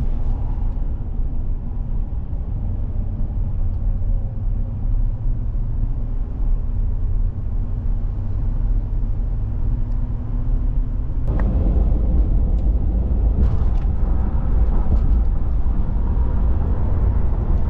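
Half-ton pickup truck driving, with a steady low rumble of road and engine noise that grows louder and rougher about eleven seconds in.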